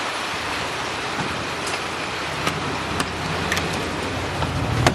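A car engine idling, left running to warm up, with a steady hiss of air over it and a few light clicks and knocks. The low rumble grows stronger about halfway through.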